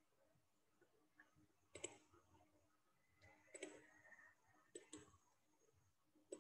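Near silence: room tone broken by a few faint, short clicks.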